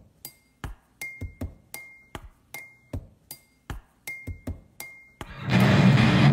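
Sharp, clinking percussion hits in an uneven rhythm, several leaving a brief high ring, as a song's intro. About five seconds in, the full band comes in loud, led by distorted electric bass.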